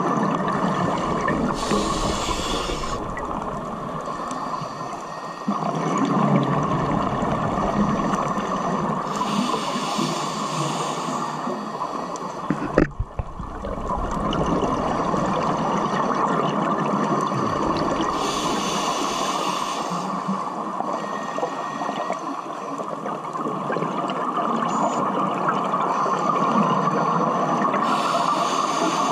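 Scuba regulator breathing heard underwater: a hissing inhale about every eight seconds, four in all, over steady bubbling water noise, with a single sharp knock near the middle.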